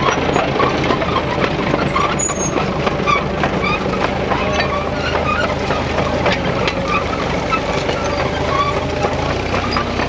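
Tractor engine running steadily under load, pulling a plough through the soil; its note shifts slightly near the end.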